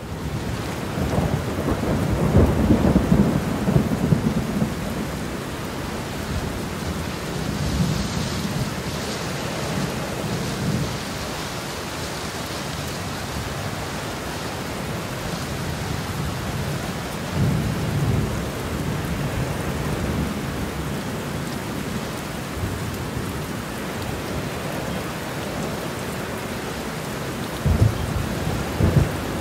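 Strong wind blowing through tall pine trees, a steady rushing hiss. Louder gusts come with a low rumble a few seconds in, around the middle and near the end.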